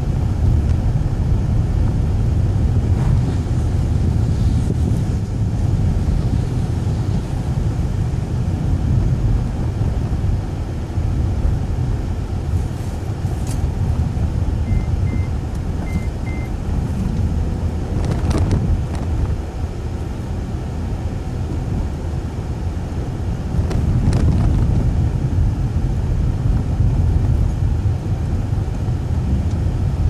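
Steady low engine and road rumble inside the cabin of a 2011 Acura TSX driving on snowy roads, with a few brief swishes.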